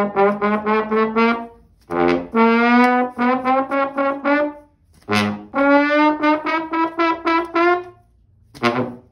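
A brass instrument plays three phrases of quick repeated tongued notes, each phrase creeping upward in pitch, with short breaks between them.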